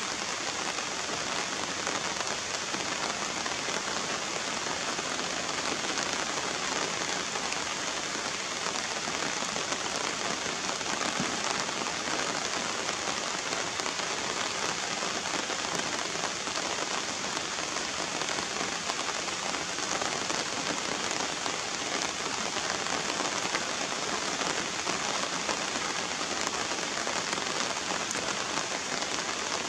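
Steady rain falling on wet ground and puddles, an even hiss of drops that does not let up.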